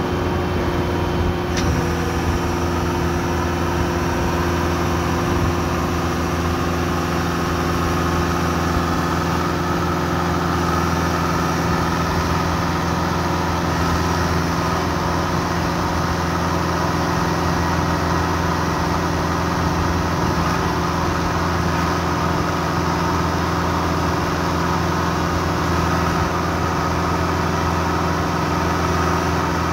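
Skid steer engine running at a steady speed, heard from the operator's seat, powering a hydraulic auger as it bores into dirt.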